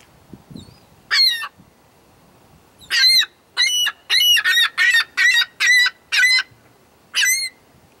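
Ring-billed gull calling: one call about a second in, then a fast run of about eight calls, roughly three a second, and one more near the end.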